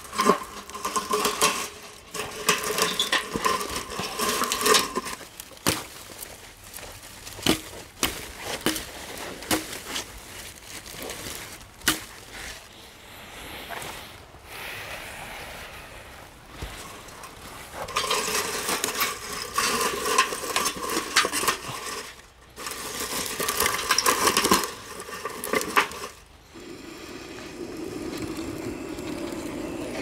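Dry brushwood and twigs snapped and crushed into a metal fire pit, in bursts of dense crackling and sharp cracks. Near the end a steady roar starts as a handheld gas torch is held to the kindling to light it.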